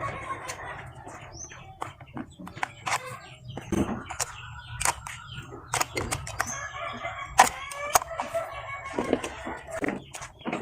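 Chickens clucking, mixed with frequent sharp clicks and knocks.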